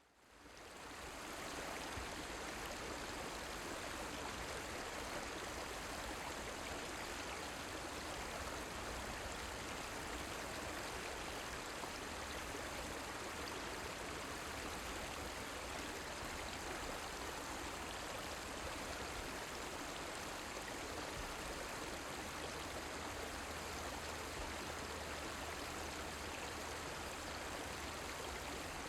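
Fast-flowing river stream rushing steadily, fading in over the first second or so.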